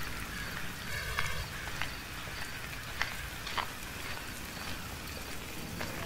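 Steady rain-like hiss with a few scattered drip-like ticks, and a short pitched animal call about a second in.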